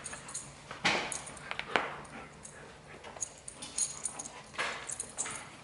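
Two dogs playing tug of war over a toy: irregular scuffling and sharp sudden knocks as they tussle on a rug, mixed with dog noises.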